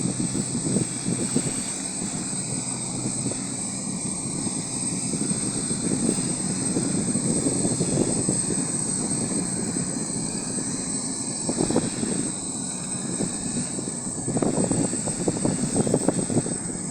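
Boat engine running steadily, with a thin high whine over a low drone that swells a little near the end.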